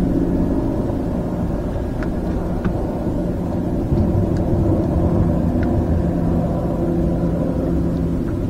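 An engine drones steadily at an even pitch, with a few faint light clicks over it.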